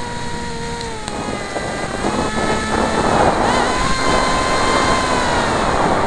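Electric motor and propeller of a Dynam Snow Bird RC plane whining, heard from a camera on the plane with wind rushing past. The pitch sinks slightly, then rises about three seconds in as the motor speeds up.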